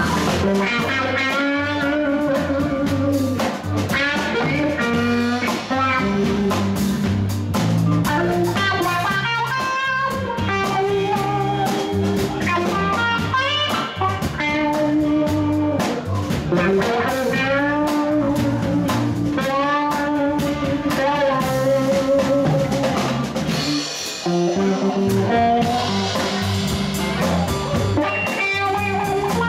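Live band playing: an electric guitar lead line with bent, sliding notes over electric bass and a drum kit.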